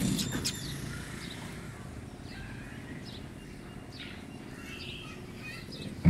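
Small birds chirping now and then in short calls, a brighter flurry of them near the start, over a steady low background rumble.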